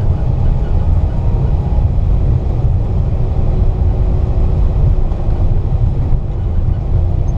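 Airbus A321 taxiing, heard from inside the passenger cabin: a steady low rumble of its engines and its wheels rolling on the taxiway concrete. A faint steady hum joins about three seconds in.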